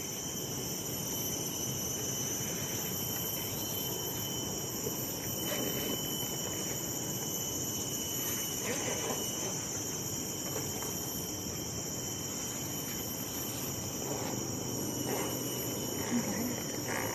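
Chorus of forest insects: a steady, high-pitched buzzing and shrilling at several pitches at once, unbroken throughout.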